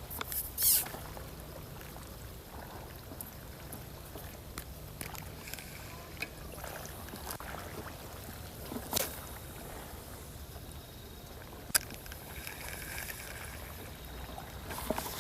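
Water lapping and trickling at the shoreline, with a steady low hum underneath. A few sharp clicks break through, the clearest about a second in and again near the end.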